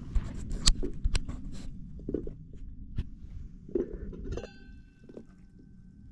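A few knocks of handling, then an aluminium pot lid lifted off a bowl of boiling water clinks and rings with a clear tone that fades over about a second and a half. A low rumble runs underneath, the bubbling of the boiling water.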